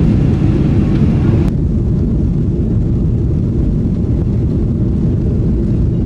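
Jet airliner's engines heard loud and steady from inside the passenger cabin during takeoff, a deep rumble. The higher hiss drops away suddenly about a second and a half in.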